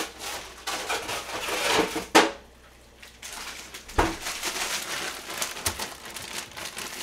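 A plastic bag of shiitake mushrooms crinkling and rustling as it is handled and opened, with a sharp knock about two seconds in and a dull thump about four seconds in.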